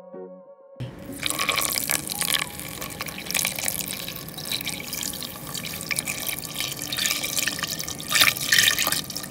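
Water pouring from a jug into a stainless steel pot onto feijoa purée and sugar, a steady splashing pour that starts about a second in, with a few louder splashes near the end.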